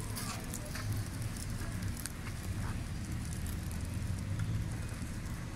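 Outdoor street noise: a steady low rumble of road traffic, with scattered faint clicks.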